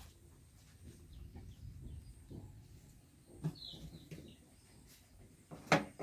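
Faint outdoor background with one short high chirp a little past the middle, then a sharp knock near the end as a monkey clambers onto a plastic knapsack sprayer tank.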